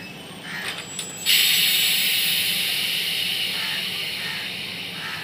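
Compressed air venting from the MEMU train's air brakes: a sudden loud hiss about a second in that fades slowly, over a steady low rumble from the slowly moving coaches.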